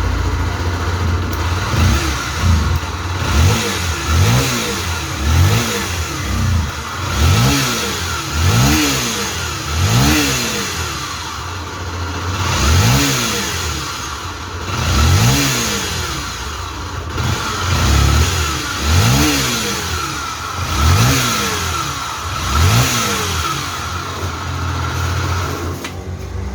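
Honda XRE 300 / CB 300 single-cylinder engine running and revved in about a dozen short throttle blips, with a steady whining hum over it. The hum is the noise of a damaged crankshaft bearing on the left, magneto side.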